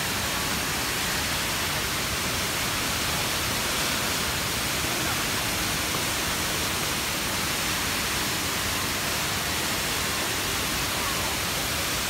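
The Rain Vortex, Jewel Changi Airport's indoor waterfall, pouring steadily from the roof into its pool as an even, unbroken hiss of falling water.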